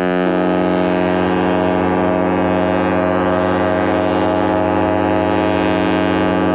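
Cruise ship's horn sounding one long blast, several steady notes together as a chord, starting suddenly and holding loud.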